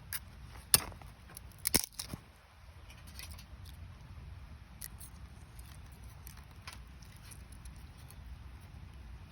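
Campfire of gathered firewood, still damp from the previous day's rain, crackling over a steady low rumble of flame. A sharp pop comes just under a second in and a quick cluster of snaps around two seconds, then fainter, sparser snaps.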